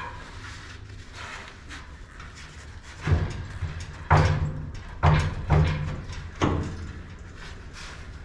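Five heavy knocks, about a second apart, with a short pause before the fifth, as of steel being struck or set down, over a steady low hum.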